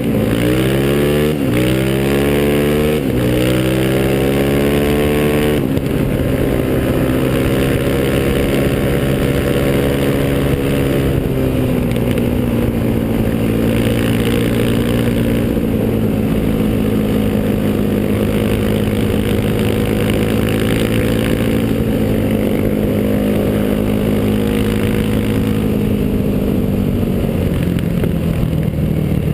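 Single-cylinder four-stroke sport ATV engine under hard acceleration. It revs up and drops back through three gear shifts in the first few seconds, then runs at a steady high speed with small easings of the throttle.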